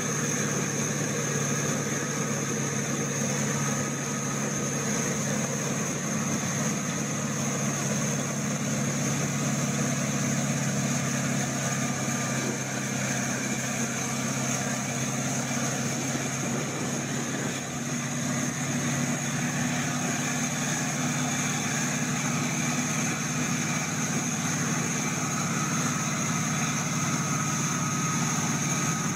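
Diesel engine of a Wirtgen WR 2000 soil stabilizer running steadily under way: an even low drone with a steady high whine above it.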